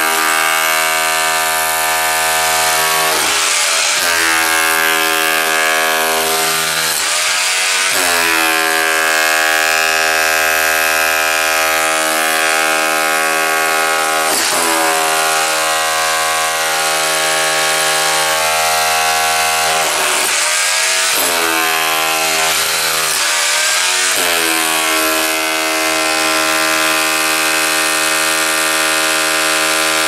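Electric power chisel (demolition hammer) pounding its chisel bit into a stone floor, a continuous rapid hammering with a buzzing pitch. The pitch dips briefly and climbs back several times.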